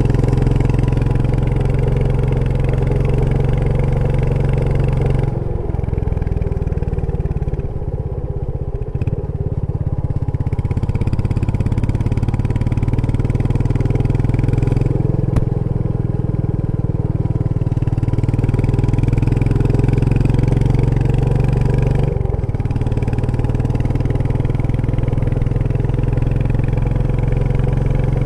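Royal Enfield Meteor 350's single-cylinder engine running under way on a ride. About five seconds in the throttle is eased off for several seconds and the sound thins, then it pulls again; it eases briefly once more near the end.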